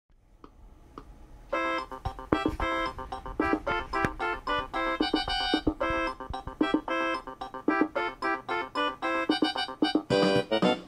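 Intro music: an electronic keyboard tune of quick, short notes, starting about a second and a half in.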